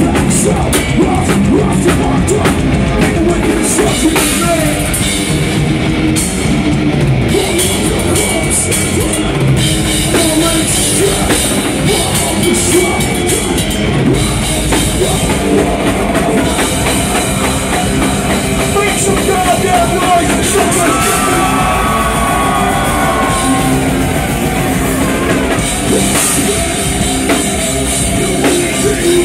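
Heavy metal band playing live at full volume: pounding drum kit and distorted guitars.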